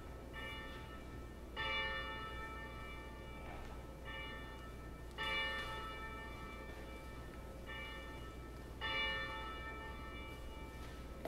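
Church bell ringing in an uneven two-stroke pattern: a softer strike, then about a second later a louder one, with each pair repeating every three and a half seconds or so and every strike left to ring on.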